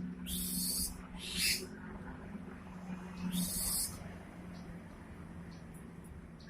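White-rumped shamas giving three short, harsh, hissing calls, each starting with a quick upward slide, over a steady low hum.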